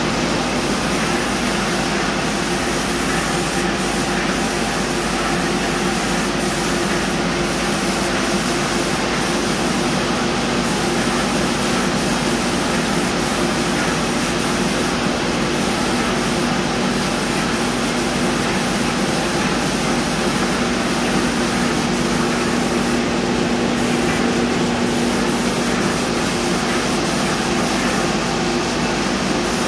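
Tritech airless paint sprayer in use: a steady hiss of coating atomizing from the gun's spray tip over a steady low hum, going on without a break.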